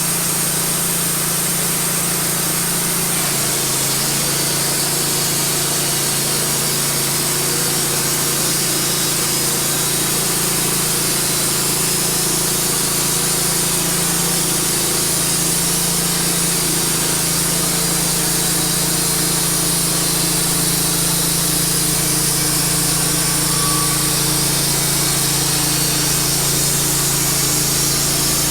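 Wood-Mizer LT15 bandsaw sawmill running steadily, its engine under load as the blade cuts through a cedar log. The engine note shifts slightly about three seconds in and again about halfway through.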